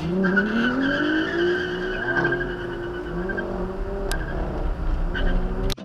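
A sports coupe's engine revving hard as it launches from a stop. The pitch climbs steeply for about a second and a half, then holds high, with tires squealing over the first couple of seconds.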